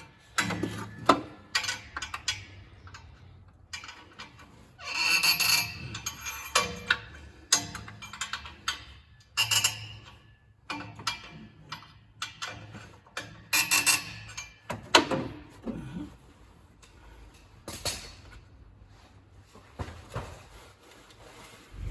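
Hand tools clinking and knocking on metal at irregular moments, with a few short scraping bursts, as a loose exhaust fitting that had been slapping the transmission housing is tightened up.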